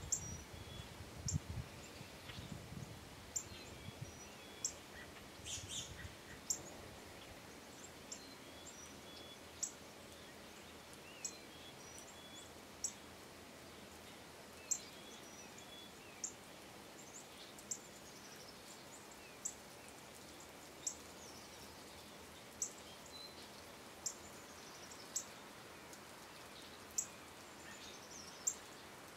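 A bird repeats a short, high, sharp chip note about every one and a half to two seconds, with a few fainter thin falling calls between, over a faint steady outdoor hiss. A low rumble is heard in the first few seconds.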